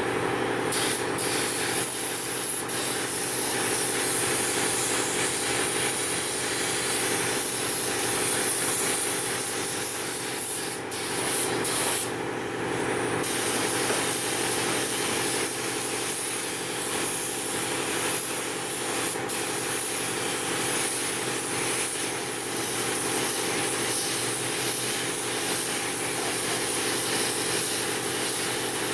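Compressed-air paint spray gun hissing steadily as it sprays paint onto a plastic bumper cover. The hiss breaks off briefly a few times, about a second at a time, between passes.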